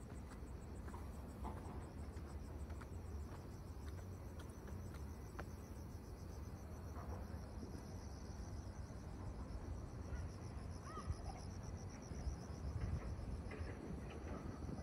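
Night insects calling in fast pulsed high trills, several at different pitches overlapping, over a low steady rumble.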